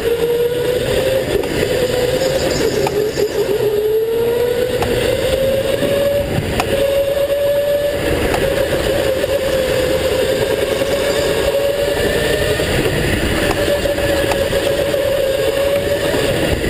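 Go-kart running at speed, heard from a camera mounted on the kart: a loud, steady whine from the drive that rises and falls in pitch as the kart slows for corners and speeds up again, over a rough rumble, with a few light knocks.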